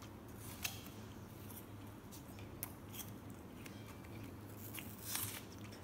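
A paintbrush dabbing and scraping against a canvas in short, irregular scratchy taps, with a longer scrape about five seconds in. A low steady hum sits underneath.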